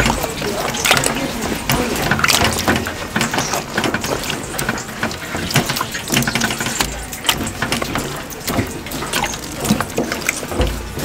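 Kitchen prep noise: many scattered knocks and clatters over a steady rush of running tap water.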